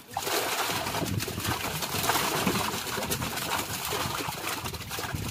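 Many small live fish splashing and flapping as a crate of them is tipped into a tarpaulin-lined tank of water: a dense, busy patter of splashes that starts suddenly just after the start.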